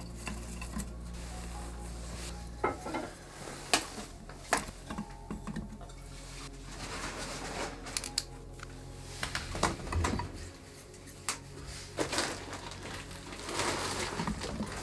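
Irregular clinking and clattering of small hard objects being handled, with scattered sharp clicks and a few scraping, rustling swishes. A low hum drops away about three seconds in.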